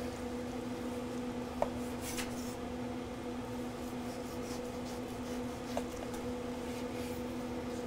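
A carving knife slicing through a roast prime rib on a wooden cutting board: soft sawing strokes, with two light taps of the blade on the board, about a second and a half in and near the end. A steady low hum runs underneath.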